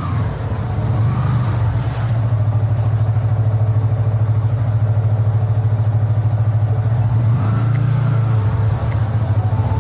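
Yamaha R15 V3's single-cylinder engine idling steadily, with a brief swell about eight seconds in.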